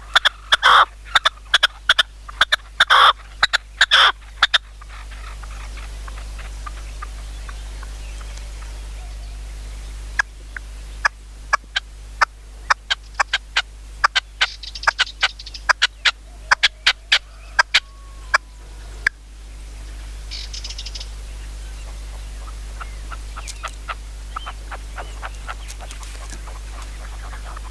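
Red-legged partridges calling: runs of sharp, rapid clucking notes, a loud run in the first few seconds and another from about ten seconds in until about nineteen. Small birds chirp faintly in the quieter stretches.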